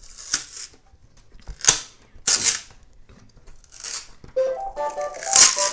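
Several sharp snaps as prints crack off a flexed Bambu Lab A1 build plate. About four seconds in, a Bambu Lab A1 printer starts its print-start jingle, a short melody of electronic tones stepping upward.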